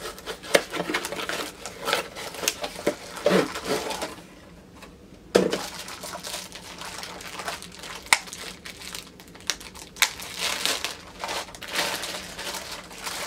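Packaging of a cosmetic organizer being opened by hand: irregular crinkling and rustling with a few sharp clicks, the loudest about five seconds in.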